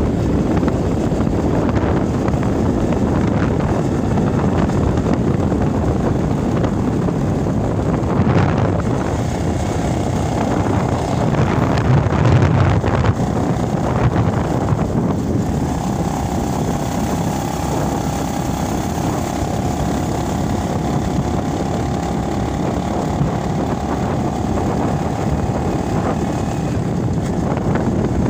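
Wind noise buffeting the microphone over the steady running of a moving vehicle, heard from on board. A faint steady whine comes in about ten seconds in and holds until near the end.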